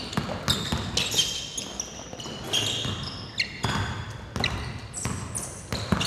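A basketball being dribbled on a hardwood gym floor, with irregular thuds, and sneakers squeaking on the wood.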